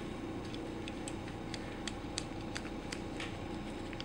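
Faint, irregular light clicks of small metal parts being handled, with a steady low hum underneath. The parts are the vacuum pump's faceplate being set against the body and its screws.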